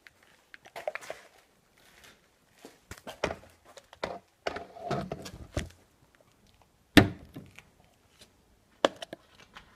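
A small plastic bottle of polyurethane rubber resin (part A) shaken hard by hand, the liquid sloshing and the bottle rattling for about five seconds. Then one sharp thunk as it is set down on the workbench, and a lighter knock a couple of seconds later.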